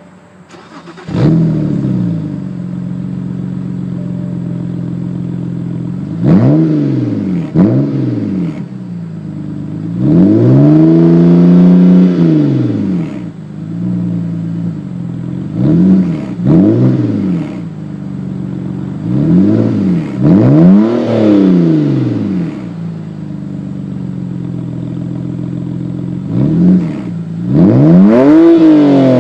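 BMW 128i's naturally aspirated inline-six starts about a second in with a loud flare, then settles to idle. It is revved in short blips several times, holding two longer revs, with a quick run of blips near the end.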